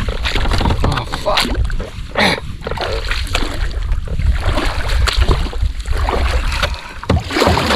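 Water splashing and irregular knocks and clatter of handling aboard a fishing kayak, over a low rumble.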